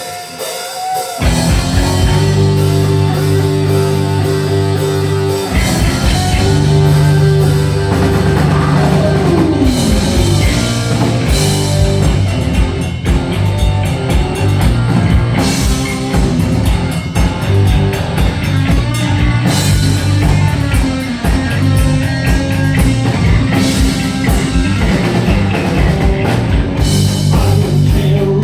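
Heavy metal band playing live: distorted electric guitar, bass and drums kick in about a second in and play an instrumental intro with no vocals.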